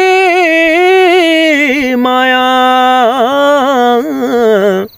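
A man singing a Nepali song unaccompanied, drawing out long held notes with wavering turns. The note steps down about two seconds in and is held until just before the end.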